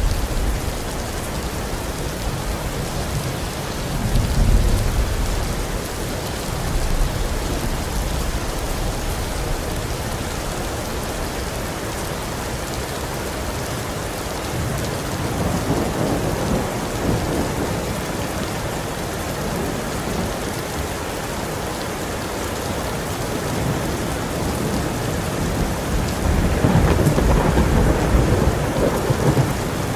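Heavy rain falling steadily in an even hiss, with rolls of thunder rumbling underneath, three times, the loudest roll near the end.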